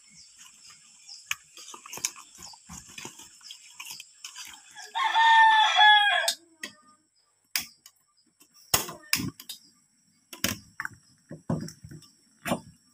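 A rooster crows once, a single call of over a second and the loudest sound here, followed by a scatter of sharp knocks and clicks.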